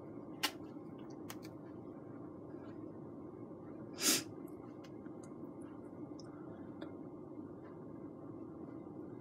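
Quiet room tone with a steady low hum, broken by a faint click about half a second in and one short hissing puff about four seconds in.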